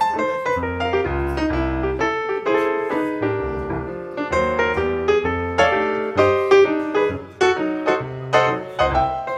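Background piano music: a run of quick notes over a bass line.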